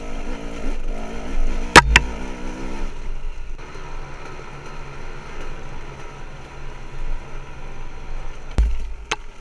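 Husaberg TE300 two-stroke enduro bike engine running under changing throttle, its revs rising and falling for the first three seconds and then settling to a steadier note. Two sharp knocks about two seconds in and a few more near the end.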